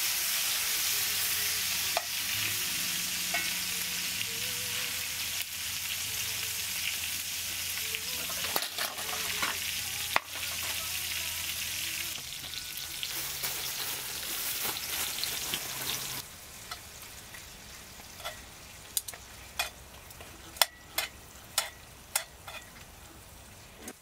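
Mushrooms and onion wedges sizzling in oil in a cast iron skillet, with a few sharp clicks of tongs stirring them against the pan. About two-thirds of the way through the sizzle stops and a quieter stretch follows with a string of sharp clicks.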